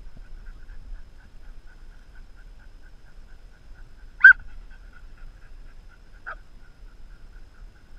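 A dog gives one sharp, short bark about four seconds in and a fainter one about two seconds later, over a faint rhythmic chirping in the background.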